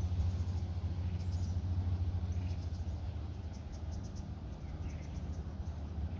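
Outdoor ambience: a steady low rumble with faint, repeated high-pitched chirping of insects, typical of crickets.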